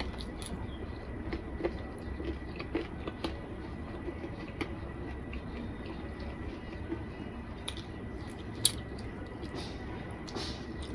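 Eating sounds: soft, wet squishing and chewing of khichuri and chicken curry, with scattered small clicks and one sharper click near the end.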